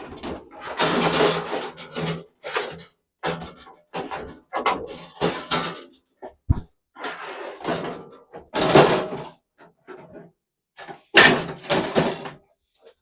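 Sheet-metal microwave casing being handled and fitted back on: repeated rattling, scraping and clattering of thin metal, with a few sharp knocks.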